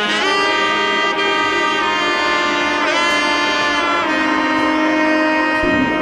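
Background music with sustained pitched notes that change every second or so.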